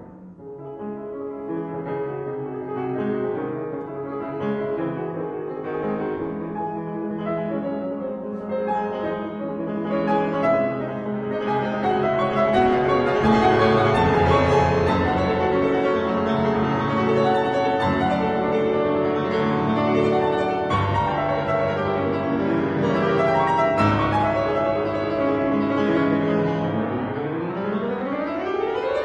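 Steinway grand piano played solo in a classical piece, growing louder partway through, with a fast run rising up the keyboard near the end.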